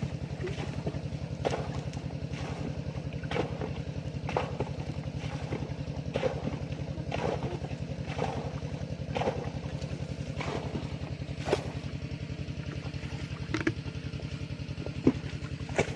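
Small engine running steadily with a fast, even chug, with scattered sharp knocks over it about once a second.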